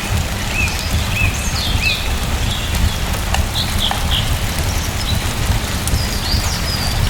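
Steady rain with a low, even rumble. Small birds chirp over it: a short hooked chirp repeats four times in the first two seconds, then higher chirps and trills follow. A few sharp ticks stand out.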